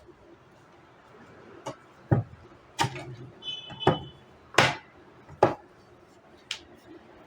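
A series of about seven sharp knocks and clicks, irregularly spaced over several seconds, with a short high beep near the middle.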